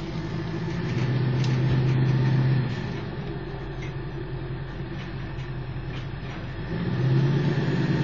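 Pickup truck engine towing a loaded gooseneck livestock trailer at low speed, a steady low hum that grows louder for a second or two about a second in and again near the end as it pulls.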